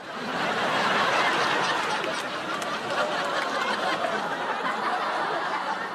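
Sitcom studio audience reacting with a collective 'ooooh', many voices together, mixed with chuckling and laughter.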